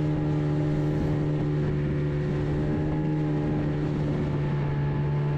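Fishing boat's outboard motor running at a steady speed, an even engine drone that holds one pitch.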